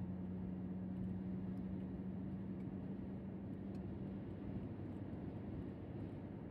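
Steady low road and engine noise inside the cabin of a moving Lexus LS430, with a steady hum that fades out about two thirds of the way through.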